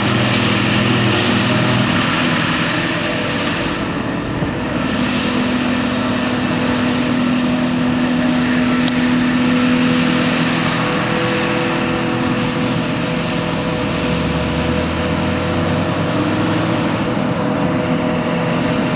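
Claas Jaguar self-propelled forage harvester running under load, picking up and chopping grass, with a tractor's engine running alongside; a steady, loud mechanical drone with a constant engine hum.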